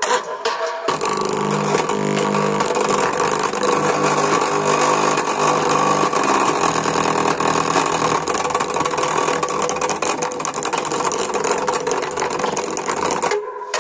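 Small bare full-range loudspeaker driver playing loud, harsh, distorted sound with a rough, engine-like buzz. It cuts out briefly near the end.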